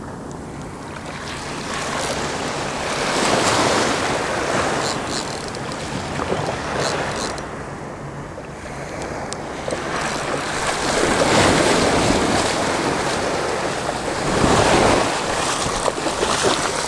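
Small surf waves washing in over a shallow sandy beach, the rush of water swelling and falling away several times, loudest near the end.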